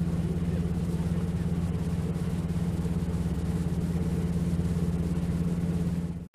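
A fishing cutter's engine running at a steady speed: a low, even hum with a hiss of wind and water over it.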